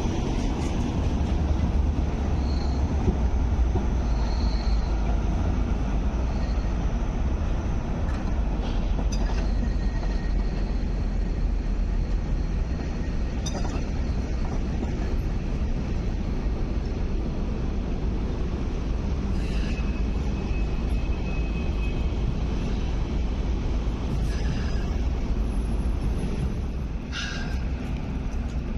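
MTR Light Rail vehicle running over depot points and crossings, a steady rumble that fades as it moves away after about ten seconds. A few short high wheel squeals and sharp clicks of wheels over rail joints are heard along the way.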